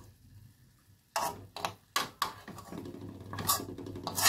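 Metal spoon scraping and knocking against a metal wok as scrambled egg is scooped out. After a quiet first second come several short, sharp scrapes and clinks.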